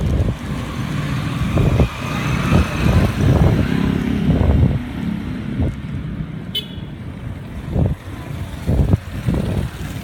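Motorcycle and car traffic running along a town street, heard from a moving bicycle, with uneven low rumbling surges. There is one short sharp click about two-thirds of the way in.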